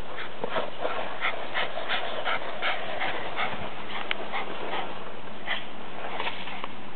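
Small dog panting with its mouth open, quick breaths about three a second that thin out and slow about halfway through. It is out of breath from running and pushing a ball.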